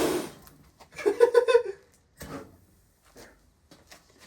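A sudden loud burst right at the start, then a man laughing in a quick run of ha-ha pulses, followed by a few faint knocks.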